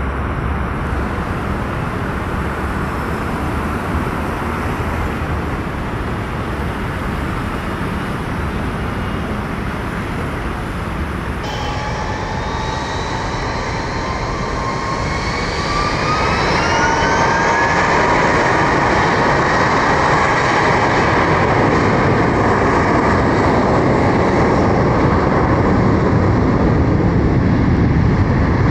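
Airbus A320 jet engines running as it rolls down a wet runway, a steady rush of engine noise and spray. About eleven seconds in this gives way to an Airbus A319's IAE V2500 turbofans spooling up for the takeoff roll: a whine rising in pitch, growing louder about sixteen seconds in, then holding at full thrust with the hiss of spray off the wet runway.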